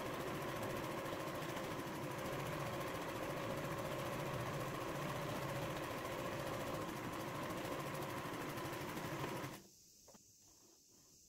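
Domestic sewing machine running steadily as it stitches a seam in gingham lining fabric, stopping about a second and a half before the end.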